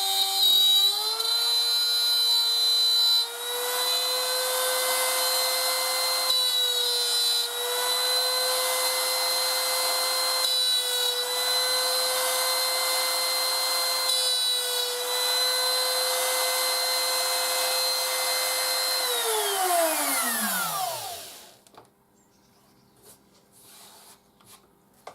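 Laminate trimmer (small router) running at speed and cutting a truss-rod channel in a wooden guitar neck; a steady high motor whine with a hiss of cutting, the pitch dipping slightly a few times under load. About 19 seconds in it is switched off and winds down to a stop.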